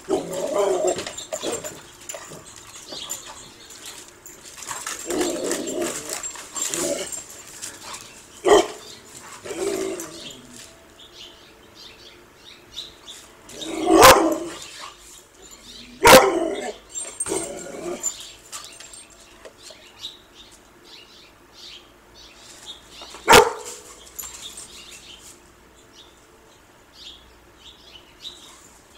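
Dog barking: a few loud single barks spaced several seconds apart, with softer vocalising between them.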